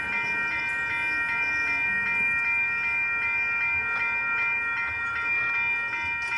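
Electronic bell of a toy railroad crossing signal dinging steadily, about three rings a second.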